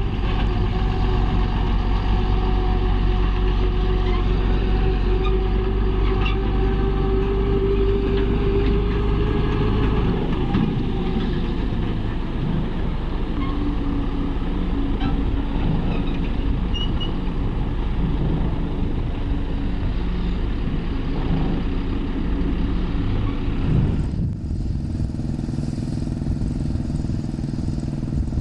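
Diesel engines of heavy construction machinery running steadily, with the sound changing abruptly about 24 seconds in.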